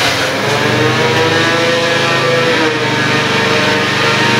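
Engine of a forage chopper (grass-chopping machine) running steadily at a constant speed.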